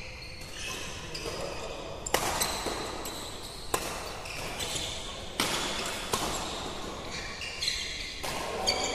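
Doubles badminton rally: a shuttlecock is struck by racquets in several sharp hits spaced about a second apart, with short high squeaks of court shoes on the floor, most of them near the end.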